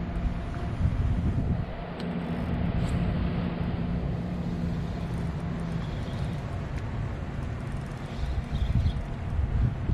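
A steady motor hum with a few even pitch lines, fading out about six seconds in, over a rough low rumble of wind on the microphone.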